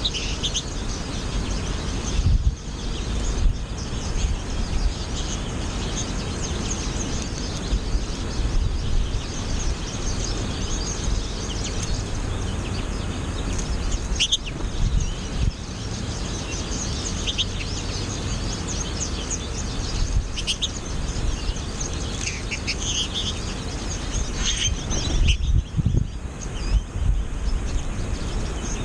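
American goldfinches chirping and twittering, many short high calls scattered throughout, over wind rumbling on the microphone.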